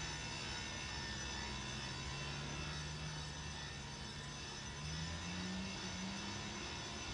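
Lithium-ion battery-powered Ronin rope ascender's electric motor running steadily as it hauls a climber up the rope, a low drone whose pitch wanders and rises a little about five seconds in.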